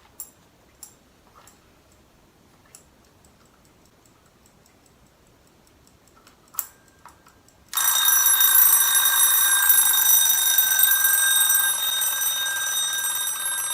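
Standard mechanical wind-up alarm clock: a few faint clicks, then about eight seconds in its bell goes off at full loudness at once and rings steadily for about six seconds before cutting off near the end.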